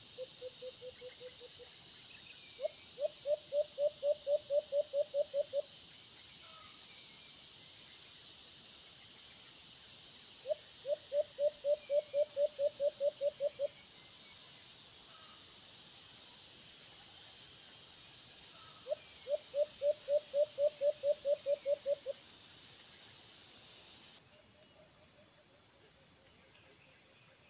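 Alimokon dove calling: three runs of about a dozen quick, low hoots, each run about three seconds long and coming roughly every eight seconds. A shorter, softer run comes at the start and another near the end. Short high chirps repeat every few seconds.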